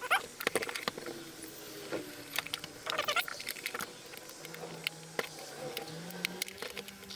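Plastic housing of an electric fan heater being pressed and worked shut by hand: scattered clicks and knocks of the shell halves, with squeaks of plastic rubbing against plastic about three seconds in. The cheap, flimsy shell is hard to close.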